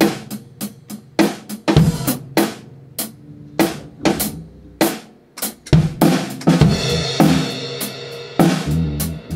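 Drum kit played with sticks in a loose groove of kick, snare and cymbal strokes, a few strikes a second. A cymbal rings out longer about seven seconds in.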